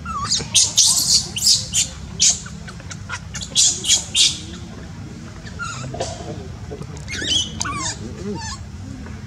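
Baby macaque screaming in distress: a rapid run of short, shrill cries over the first four seconds, then a few wavering squeals near the end, over a steady low hum.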